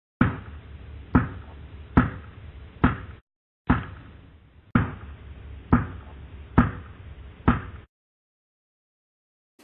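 Knocking on the wooden-board binding of a 15th-century printed law book: nine sharp knocks about a second apart, with a short pause after the fourth.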